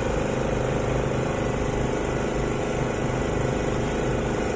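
A steady mechanical hum of an engine or motor running at a constant speed.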